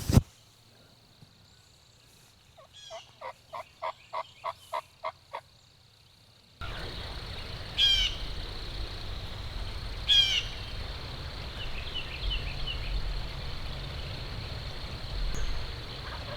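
Turkey yelps, a run of about ten short notes about four a second, then the background noise jumps up suddenly. After that an Eastern wild turkey gobbler gobbles loudly twice, about two and a half seconds apart, with fainter calls after.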